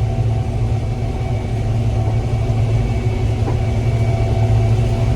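Combine harvester running steadily while picking corn, its engine and machinery giving a constant low drone with steady tones above it, heard from the cab.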